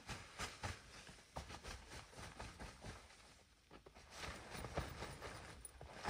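Faint irregular crunching and scuffing of footsteps and movement in snow, quieter for a moment in the middle and busier again near the end.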